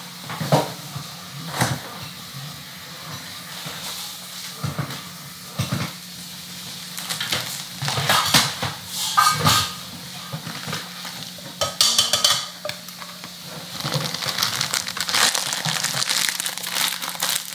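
Kitchen handling sounds: a plate and dishes knocking and clinking now and then, with a few clustered clatters. Over the last few seconds, a stretch of plastic rustling as shredded lettuce is taken from its bag.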